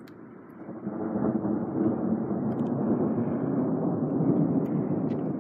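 Thunder rumbling, growing louder about a second in and continuing steadily.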